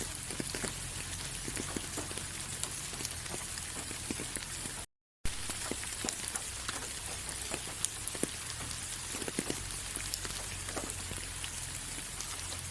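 Steady rain falling, with many separate drops pattering on a surface over a faint low rumble. The sound cuts out completely for about half a second near the middle, then resumes.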